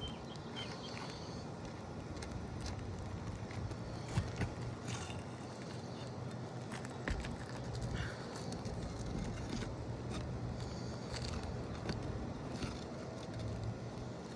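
Scattered clicks, taps and light scrapes of hand tools working asphalt roof shingles, over a steady low hum.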